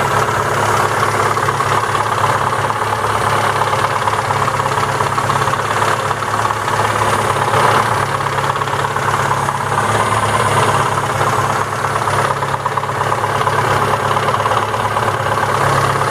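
MeMZ 317 1.4 four-cylinder petrol engine idling steadily, its valvetrain quiet with the clearances set tight, with a dull knock from the cylinder block rather than the head. The mechanic likens it to a loose flywheel and traces it to the clutch housing.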